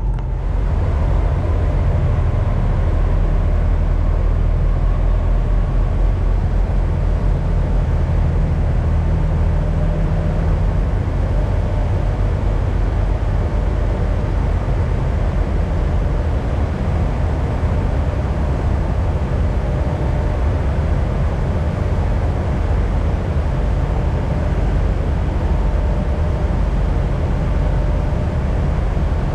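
Peterbilt semi truck's diesel engine running steadily, a loud, even low drone heard from inside the cab.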